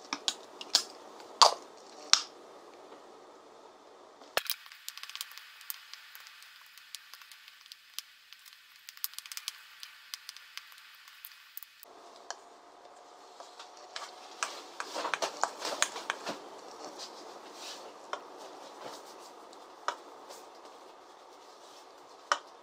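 Kitchen utensil sounds: a wooden spoon tapping and scraping against a mixing bowl and plate as seasoned cockles and rice are mixed and tipped out, making a string of sharp clicks and taps with soft squishing of the food.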